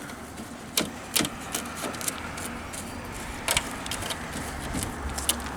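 Steady vehicle noise with a low rumble that grows near the end, broken by a few sharp clicks and taps.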